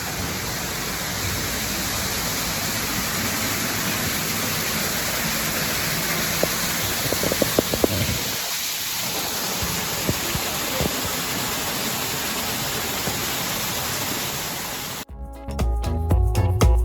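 Steady rushing noise like running water, with a few light knocks about halfway through. Music cuts in suddenly near the end.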